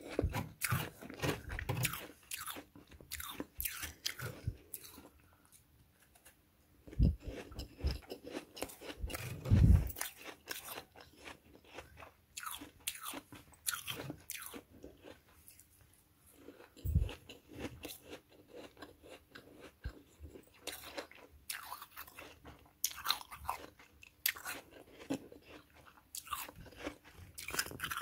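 Freezer frost being crunched between the teeth and scraped up by hand, many short crisp crunches with brief pauses and a few dull thumps among them.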